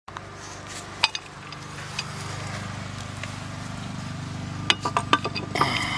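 Metal clinks and taps of steel pipe wrenches being set against the gas meter's pipe fitting, a few scattered ones and then a quick cluster near the end, over a steady low hum.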